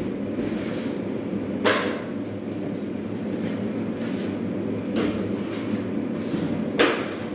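Steady mechanical rumble of running machinery, with a sharp knock about two seconds in and another near the end.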